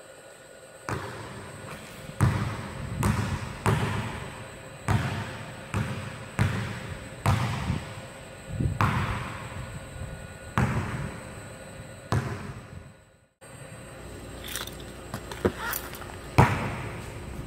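Basketball being dribbled on a hardwood gym floor, about one bounce a second, each thud ringing on in the large hall. Near the end the sound cuts out briefly, then a few sharper taps follow.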